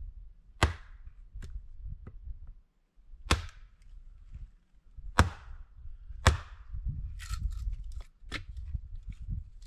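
A series of sharp strikes: four loud ones at uneven intervals, with lighter knocks between and after them, over a low rumble.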